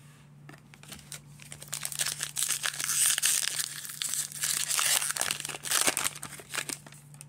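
Foil wrapper of a 2022 Donruss baseball card pack being torn open and crinkled by hand as the cards are pulled out. The crackling builds about a second in and dies away near the end.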